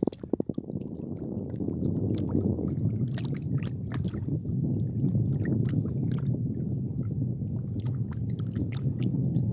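Wind buffeting a phone's microphone as a steady low rumble, with scattered small clicks and taps of handling, a quick cluster of them in the first half-second.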